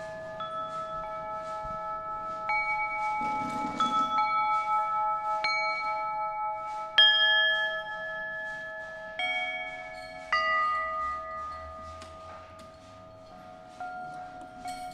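Hanging tubes of a handmade tubular chime instrument being struck one at a time. Each note rings on long and overlaps the others, about a dozen at uneven intervals, with a brief noise around four seconds in.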